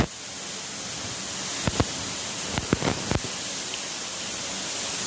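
Steady hiss that grows slowly louder, with a few faint clicks.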